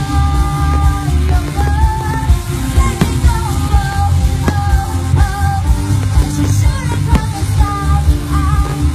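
Pop song with a singing voice over a heavy bass beat.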